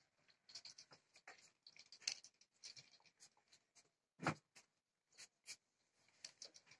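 Faint, scattered rustling and scratching as hands lift and stretch thin strudel dough over a cloth-covered table, with one louder thump about four seconds in.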